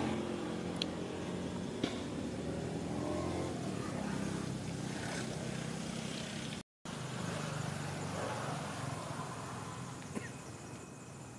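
A motor engine running steadily in the background, a low even hum, with the sound cutting out completely for an instant about two-thirds through.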